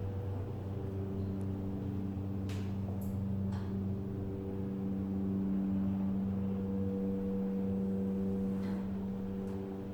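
Otis hydraulic lift travelling between floors: a steady machine hum with a few faint clicks and rattles.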